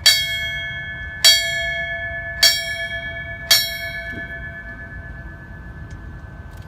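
Fire service memorial bell struck four times about a second apart, each strike ringing on, then left to ring out. These are the closing strikes of one set of five in the traditional 5-5-5 tolling that signals firefighters' last alarm, a line-of-duty death.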